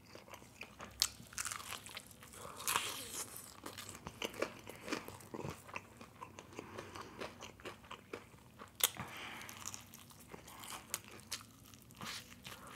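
Close-miked eating of a crispy fried chicken wing: irregular crunchy bites into the breaded skin and chewing, with sharp crackles scattered through.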